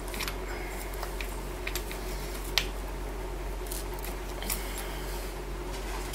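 Faint, scattered clicks and taps of hands working bolts out of a diesel engine's valve cover, with one sharper click about two and a half seconds in, over a steady low hum.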